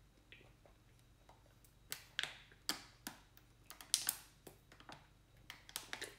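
Gulping water from a plastic water bottle: a run of short, sharp sounds from about two seconds in, roughly ten in all.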